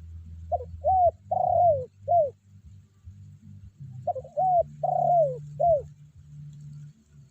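Decoy spotted dove (tekukur) calling loudly to lure rival doves: two four-note cooing phrases about three seconds apart, each note a short arched coo. A low steady hum runs underneath.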